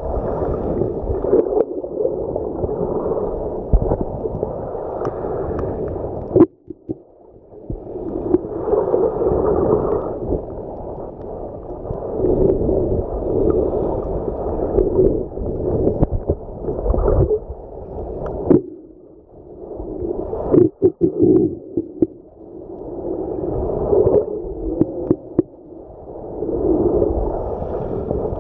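Surge waves washing over a pebble seabed, heard underwater: a muffled rushing that swells and fades every few seconds, with sharp clicks of pebbles knocking together as the wash rolls them. The rushing drops away briefly twice, about a third of the way in and again past the middle.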